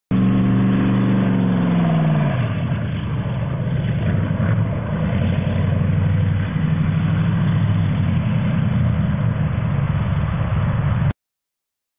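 Engine revving down, its pitch falling over the first two or three seconds, then running steadily at a low, slightly uneven pitch until it cuts off suddenly about a second before the end.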